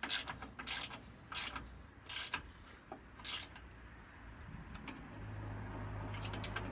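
A hand ratchet being worked in short strokes, about one every 0.7 s, tightening the fasteners of a rear rock guard. A low steady hum comes in about five seconds in.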